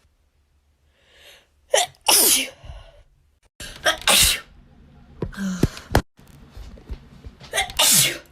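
A person's wet sneezes, three of them, about two, four and eight seconds in. Each starts with a short pitched 'ah' and ends in a loud spraying burst.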